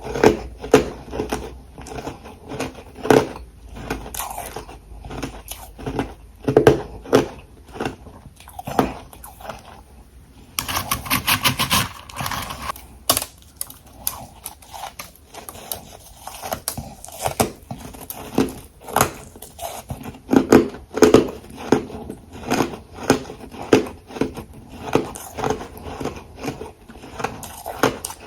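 A person biting and chewing hard ice and refrozen frost close to the microphone: a steady run of loud crunches, with a longer, denser crackling stretch about ten seconds in.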